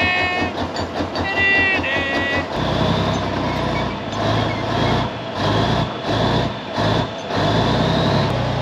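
Heavy military vehicle engine running with a steady high whine. High squealing tones come first, and about two and a half seconds in a low drone takes over, dipping briefly several times.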